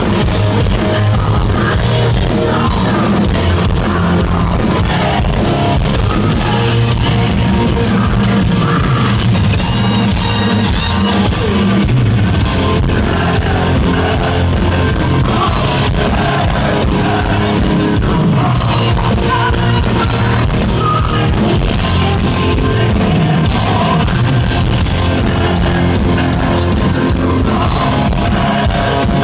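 Heavy metal band playing live: loud electric guitars, bass and drums with a singing voice over them, heard from the audience.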